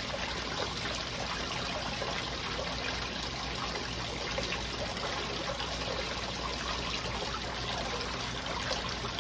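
Water running steadily down a small recirculating micro sluice over its matting, a continuous trickling flow fed by a pump on a speed controller.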